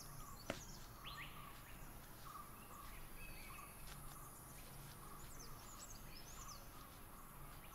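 Faint forest ambience: scattered high bird chirps and short arched whistles, with intermittent insect-like buzzing and a single sharp click about half a second in.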